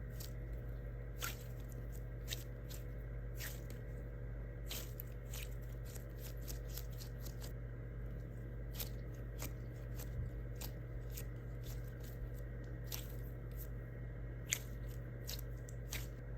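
Hands squeezing and handling a squishy foam toy: irregular small crackles and clicks, with a steady low hum underneath.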